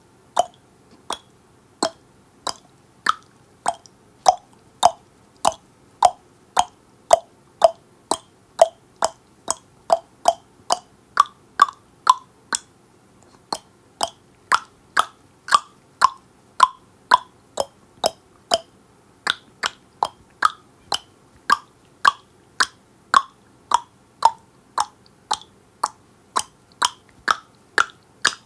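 A person clicking their tongue in a steady series, about two clicks a second, the pitch of the clicks drifting up and down. There is a short pause about halfway through.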